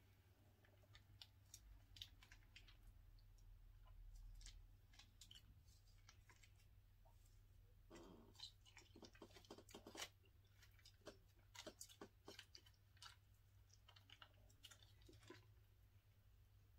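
Faint scattered clicks and crinkles of small plastic sauce packets being torn open and squeezed out over takeout food, a little busier about eight to ten seconds in.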